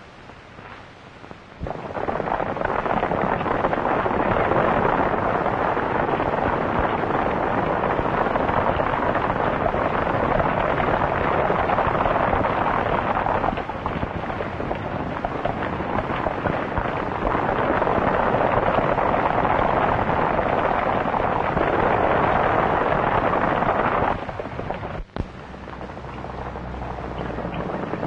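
Hoofbeats of a group of horses galloping, blurred into a continuous loud rumble. It starts about two seconds in, eases off a little midway, and cuts off sharply near the end.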